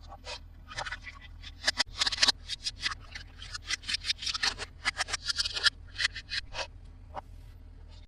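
Hands handling plastic toys and their packaging: a quick, irregular run of scratchy crackles, scrapes and light clicks, thinning out near the end.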